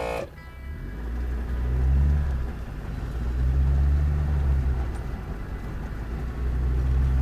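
Land Rover engine crawling off-road under load with its lockers engaged, heard from inside the cabin. The revs swell and ease in about three surges.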